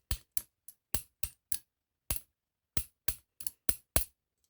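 Sharp taps on a Mul-T-Lock euro cylinder lock, about a dozen in irregular quick runs with two short pauses in the middle.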